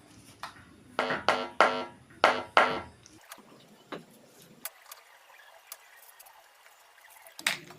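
A short musical phrase of six quick notes, each fading fast, followed by a few faint clicks.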